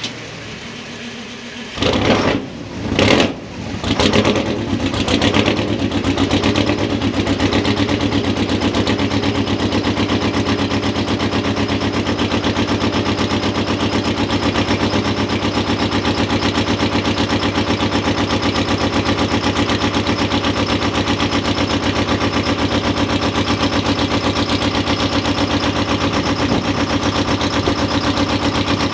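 Detroit Diesel 8V71 two-stroke V8 diesel cold starting: it catches about two seconds in with a few loud surges, then settles into a steady run with a fast, even pulse of firing strokes. It runs rough, with air still in the fuel lines and not yet firing on all eight cylinders.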